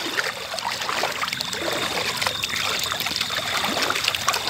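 Floodwater splashing and trickling against the hull of an inflatable rubber boat as it moves through the water, a steady run of small irregular splashes.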